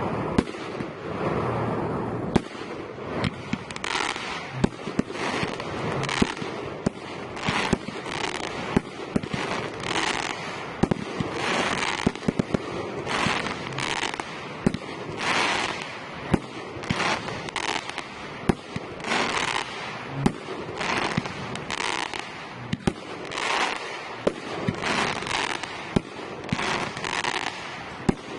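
Fireworks display: a continual run of sharp bangs from bursting shells, with hissing, crackling bursts coming about once a second in between.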